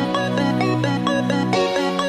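Electronic background music: held synth chords over a bass note that changes about one and a half seconds in, with short repeated notes above.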